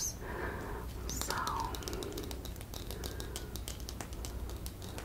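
Brief whispering, then a quick, irregular run of light clicks and taps from fingernails tapping and scratching a plastic hairbrush.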